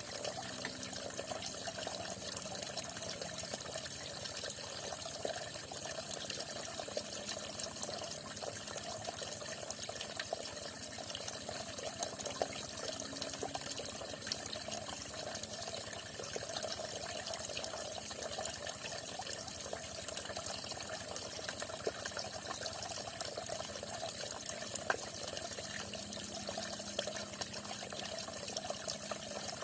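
Water falling and splashing steadily, a continuous trickling rush with small drips and splashes.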